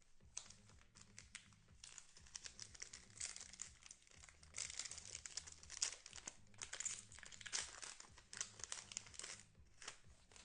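A trading-card pack wrapper being torn open and crinkled by hand: a dense, irregular run of crackles and rips, busiest in the middle and thinning out near the end.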